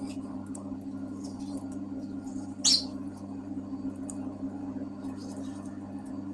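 Pet bird calling from its cage: a few faint chirps and one loud, sharp call about two and a half seconds in, which the owner takes for the bird wanting to get out of the cage. A steady low hum runs underneath.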